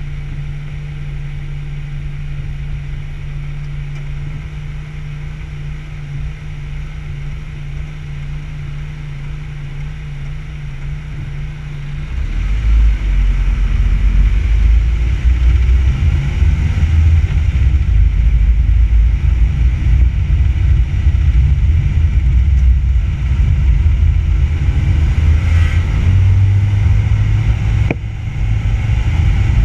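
Car engine idling with a steady low hum, heard through a front-bumper-mounted camera. About twelve seconds in the car pulls away and the sound turns into a much louder low rumble of the car driving.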